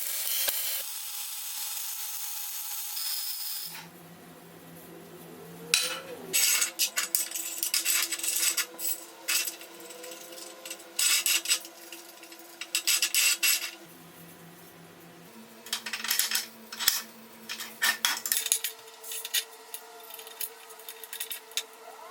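Metal workshop handling noises: a steady hiss for the first few seconds, then several bursts of rapid scraping and clattering of metal parts and tools.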